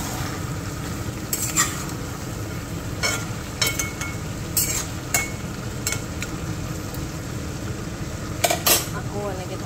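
A spatula scraping and clinking against a stainless-steel kadai as chicken pieces and onions are stirred, over a steady sizzle of the meat frying. The clinks come irregularly, with the loudest pair near the end.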